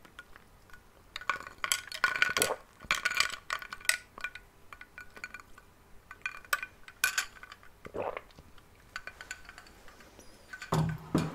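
Light clinking and tapping of tableware, hard objects knocked together in irregular clusters with a brief ringing note after each click. A duller knock comes about eight seconds in, and a louder one near the end.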